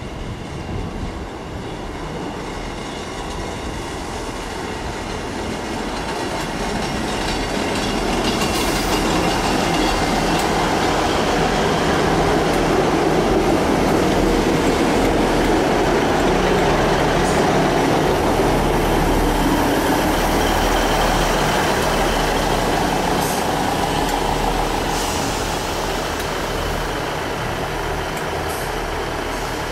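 A Class 158 diesel multiple unit running into the platform, its underfloor diesel engines and wheels on the rails growing louder as it draws alongside. The sound eases as the train slows to a stand.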